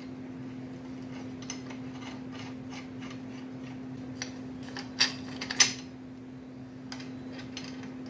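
Steel plates and a bolt clinking against a square steel frame tube as they are fitted by hand: a few light ticks, then two louder metallic clinks about five seconds in, over a steady low hum.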